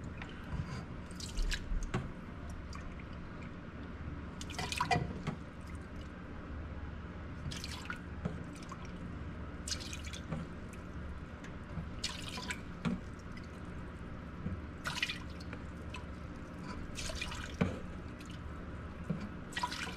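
White vinegar poured from a gallon plastic jug into a measuring cup and tipped into a metal pot: about a dozen short splashes and drips, one every second or two, over a faint steady low hum.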